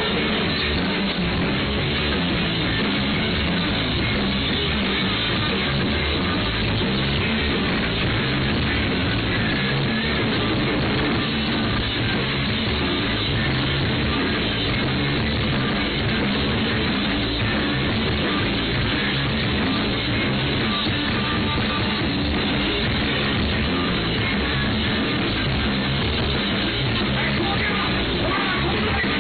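Live rock band playing steadily and loudly, led by electric guitar.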